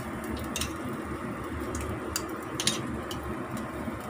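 Steady low rumble of a lit gas stove burner under a pot of heating soup water, with a few light clicks and taps as dried soup ingredients and ginger are dropped into the pot.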